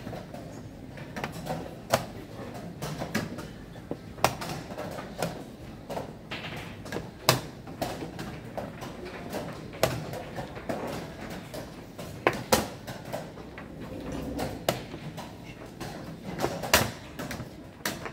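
Rapid blitz chess with both players down to their last seconds: plastic chess pieces knocked down onto the board and a digital chess clock's buttons slapped after each move. Sharp clacks at an uneven pace, the loudest every two to three seconds with lighter clicks between.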